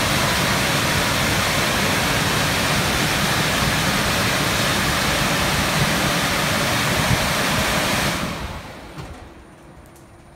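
Istobal M12 rollover car wash's dryer blowers, a loud steady rush of air, as the gantry passes over the car. About eight seconds in the blowers wind down and the rush fades away within a second or two, leaving a faint hum.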